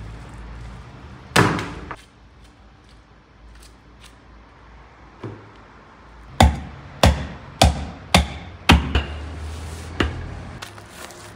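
Hatchet chopping a lamb carcass on a wooden stump block: one heavy blow about a second in, then a run of about seven chops, roughly two a second, in the second half.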